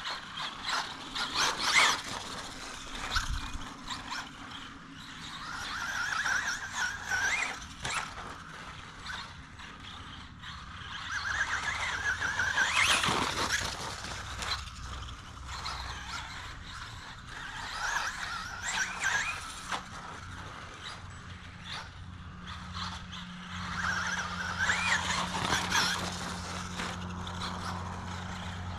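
Traxxas Bandito RC buggy with a Velineon VXL-3s brushless motor, whining up and down in pitch in repeated bursts of throttle as it is driven, with knocks and scrapes from the tyres and chassis over rough ground.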